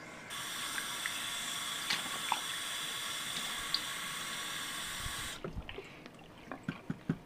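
Bathroom sink tap running steadily as a small plastic cup is filled, then shut off abruptly after about five seconds. A few light knocks and clicks follow.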